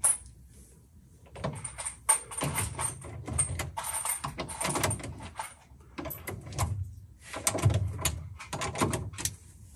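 Hand ratchet on a long socket extension clicking in repeated back-and-forth strokes, about six runs, as bolts are run down on a boat jet drive's mounting plate.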